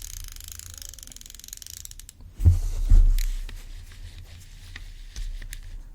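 Drag clicker of a Nako Flight Feather Cormorant FF01 baitcasting reel clicking rapidly as the drag slips, muted but audible. A little past halfway two louder thumps of the reel being handled come in, followed by a few scattered clicks.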